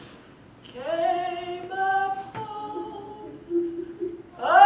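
Two women singing a gospel song without accompaniment: after a brief pause, their voices slide up into long held notes. A louder new phrase starts near the end.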